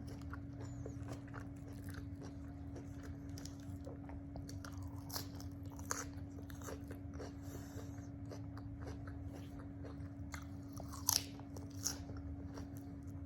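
Close-up eating sounds: chewing and crunching with many small sharp clicks and crackles, the loudest about eleven and twelve seconds in, over a steady low hum.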